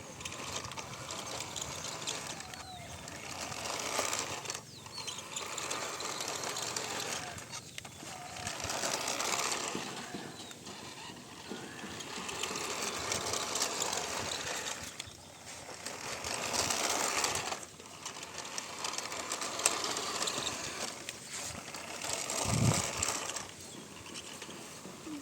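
Remote-control toy car's small electric motor and plastic gearbox whirring with a fine ratcheting rattle, starting and stopping in repeated bursts of a few seconds each as it is driven. A short low thump comes near the end.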